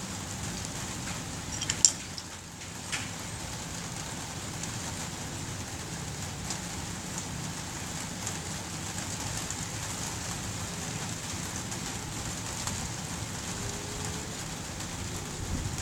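Steady rain-like hiss, with a sharp click about two seconds in and a softer one a second later.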